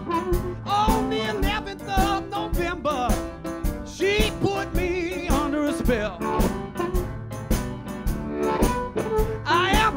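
Background music: a song with a singer over a steady drum beat.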